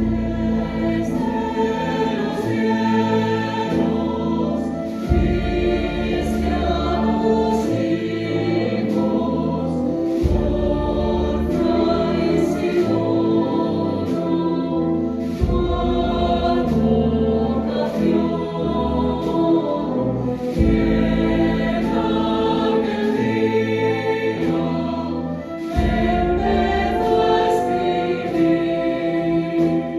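Choir and wind band performing a hymn: the choir sings full, sustained chords over the band, with a deep bass line that changes every few seconds.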